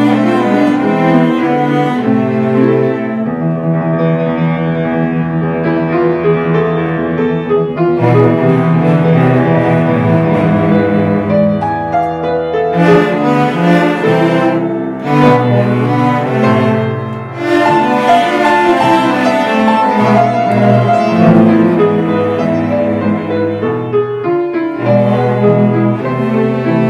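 Cello ensemble playing in harmony with piano accompaniment, the cellos bowing long sustained notes over held low notes.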